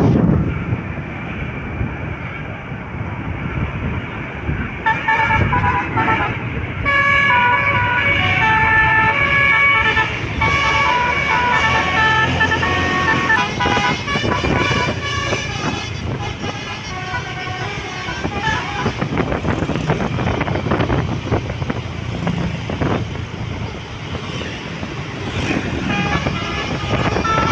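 A bus's basuri musical air horn plays a tune of stepping notes, starting about five seconds in and dying away about two-thirds of the way through. It is heard from a moving motorbike over wind rumble and traffic noise.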